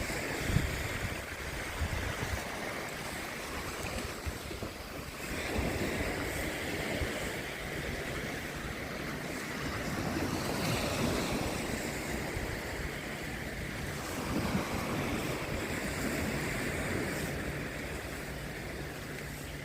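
Black Sea waves washing onto the shore, swelling and easing every few seconds, with wind buffeting the microphone.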